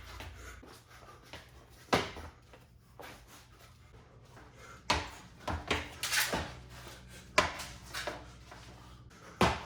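Irregular sharp knocks and swishes from a solo double butterfly-knife form: footwork striking the floor and the blades moving. The loudest hits come about two seconds in and halfway through, with a quicker cluster just before halfway and another knock near the end.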